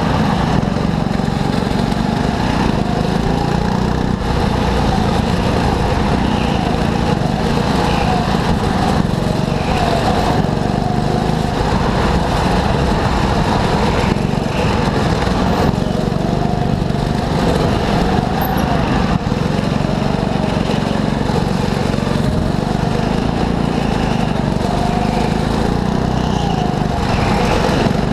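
Go-kart engine running at speed, its pitch rising and falling over and over with the throttle through corners.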